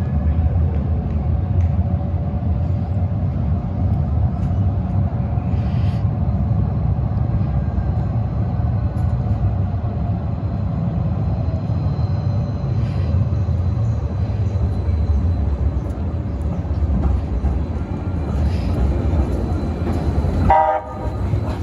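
Siemens SD160 light rail train running with a steady low rumble and a faint steady whine. Near the end comes a short, loud horn honk.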